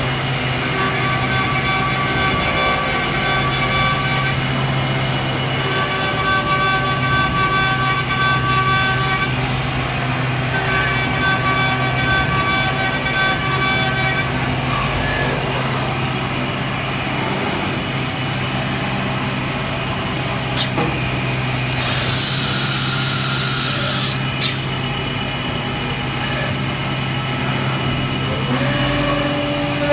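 A 4-axis CNC wood lathe running, with a steady low motor hum. Through the first half, whining drive tones come and go in passes of a few seconds each. Later there is a couple of seconds of hiss and two sharp clicks.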